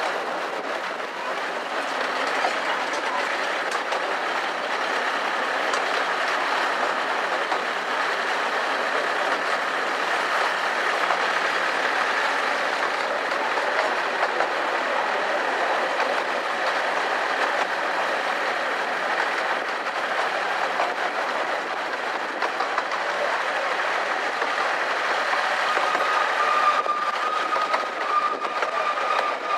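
Carriages of a 15-inch gauge miniature railway train running along the track, heard from on board: a steady running noise of wheels on rails. Near the end a thin, steady high tone comes in for about three seconds.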